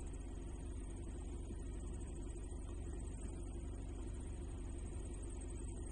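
Steady outdoor background noise: a low rumble under a constant, fine, high-pitched trill, with no cattle calls.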